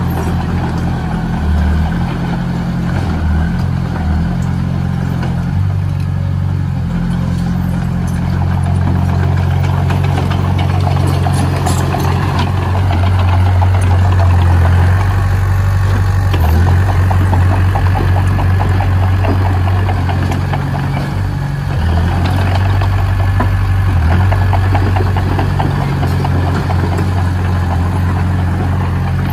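Heavy diesel engine of earthmoving machinery running steadily, louder for a few seconds around the middle.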